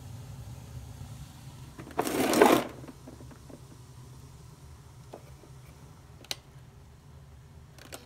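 Steady low hum of a gas-fired hydronic boiler running. About two seconds in there is a loud burst of noise lasting under a second, and later a few faint clicks.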